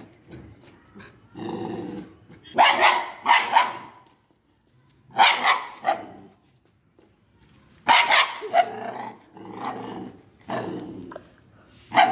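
A two-month-old Italian greyhound puppy barking: about ten sharp barks in four or five short clusters, with brief pauses between them.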